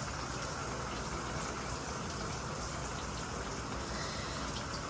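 Shower running: a steady spray of water falling.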